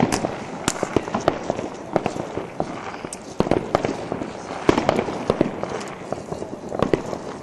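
New Year's fireworks and firecrackers going off all around: a dense, irregular crackle of bangs and pops with no let-up, the loudest reports coming in a cluster about halfway through.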